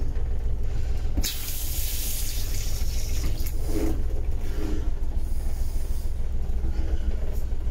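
Water running from a pull-out mixer tap into a small washbasin, starting abruptly about a second in and lasting roughly two seconds before fading. A steady low rumble runs underneath.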